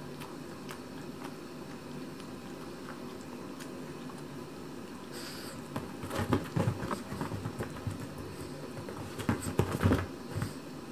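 A Chihuahua licking his fur, with faint wet clicks over a low room hum, then moving about on a leather sofa: flurries of paw taps, scuffs and bumps on the leather, about six seconds in and again near nine seconds.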